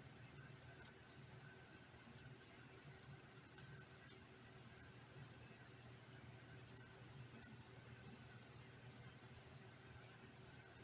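Faint, scattered small clicks and ticks at irregular intervals over a low steady hum: small parts and tools being handled while reassembling a tablet's internals.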